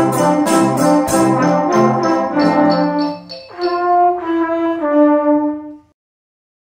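Youth wind band of trumpets, horns, trombones, euphonium and saxophones, with drum kit, playing the last bars of a pop arrangement: rhythmic chords over drum beats, then a few held brass chords. The music stops about six seconds in and silence follows.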